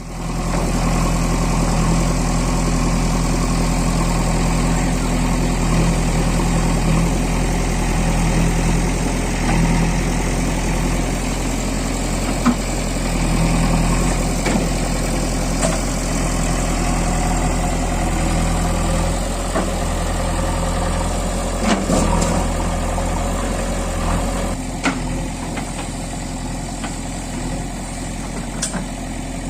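JCB 3DX Super backhoe loader's diesel engine running steadily, with a few sharp metallic knocks from the machine now and then; it gets a little quieter near the end.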